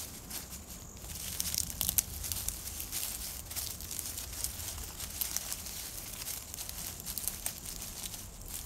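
Nine-banded armadillo rooting through dry leaf litter with its snout as it feeds, the dead leaves crackling and rustling in a quick, irregular patter that thickens about a second in.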